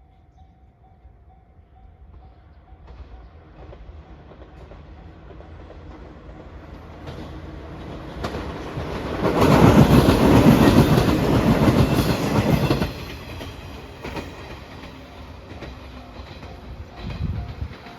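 A train approaching and passing close by, loudest from about nine to thirteen seconds in, with wheels clattering over the rail joints, then fading away.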